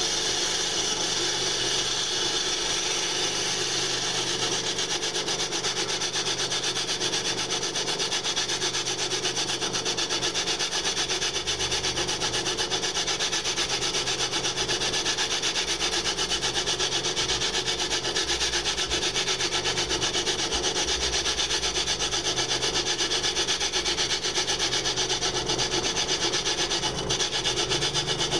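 A small imperial bench lathe runs steadily, with a low motor hum under a continuous scraping noise as the tool turns the lip off the edge of a cast iron cylinder cover spinning in the three-jaw chuck.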